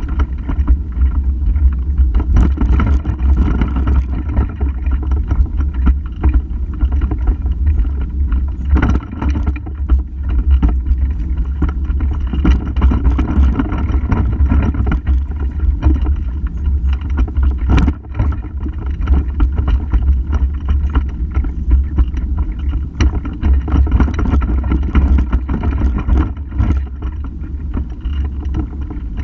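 Pram wheels rolling over paving slabs and cobblestones: a steady low rumble with frequent knocks and clicks as the chassis jolts over the stones and joints.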